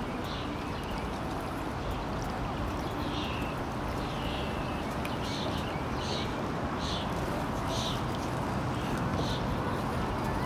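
A bird calling repeatedly from about three seconds in: about seven short, high calls roughly a second apart, the first few falling in pitch. Under them is a steady low outdoor rumble.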